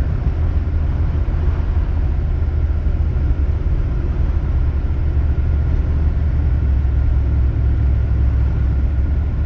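Steady low rumble of a vehicle driving on a snowy highway, heard from inside the cabin: engine and tyre noise, unchanging throughout.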